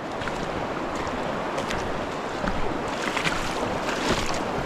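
Steady rushing of a mountain trout stream's flowing water, with a few faint ticks over it in the second half.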